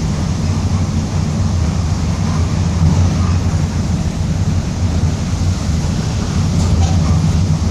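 Mercedes-Benz OF-1722M city bus under way: its diesel engine running with a steady low drone, with the differential growling.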